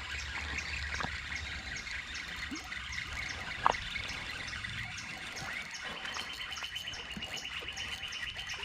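Creek-side outdoor ambience: birds chirping over a steady run of water, with a regular series of faint high ticks and a trilling call in the last few seconds. Two faint clicks sound, about a second in and near the middle.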